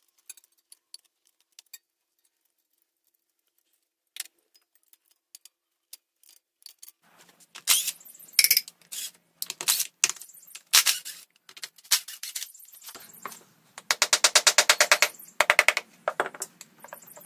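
Steel hand tools clicking and clanking against a Kubota V2203 diesel engine's fittings as it is stripped. Only a few light ticks at first, then louder metal knocks from about seven seconds in, with a quick run of rapid, even clicks near the end.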